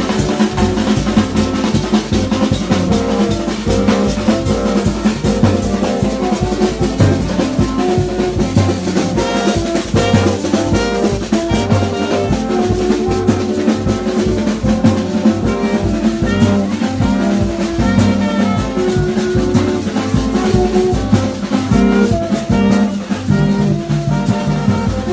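Street band music: a tall hand drum and a shoulder-slung drum beating a fast, steady rhythm, with blown tube horns playing short notes in a repeating pattern over it.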